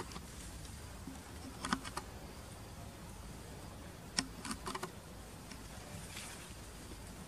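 Forest ambience with insects buzzing over a low, steady background rumble. A few short, sharp clicks come about two seconds in and again around four to five seconds.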